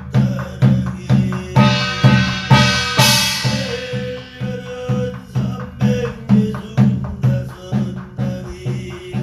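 Korean barrel drum (buk) beaten with a stick in a steady beat, about two to three strokes a second. About a second and a half in, a small brass gong is struck and rings out over the drum, fading after a couple of seconds.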